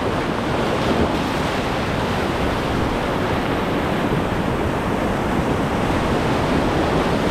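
River whitewater rushing steadily around a raft: a continuous dense roar of moving water.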